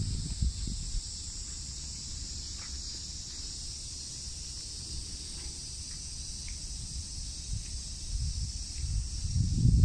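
Insects droning steadily in a high-pitched chorus, with low thumps and rumble near the start and again toward the end.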